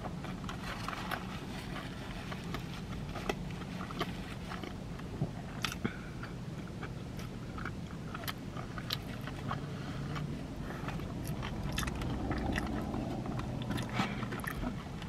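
Close-up chewing and wet mouth sounds of a person eating animal-style fries, with many scattered sharp clicks and smacks, over a low steady hum. Near the end a plastic fork scrapes in the cardboard fry tray.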